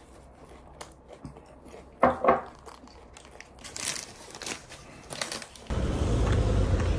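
Paper sandwich wrapper crinkling and tearing in short, irregular bursts as it is unwrapped by hand. About five and a half seconds in it gives way to the steady low rumble of street traffic.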